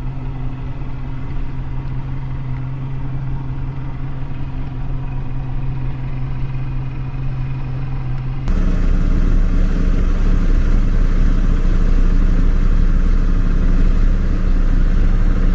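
Speedboat engine running steadily at low speed. About halfway through the sound changes abruptly to a louder run with a higher engine note and a rush of wind and water noise.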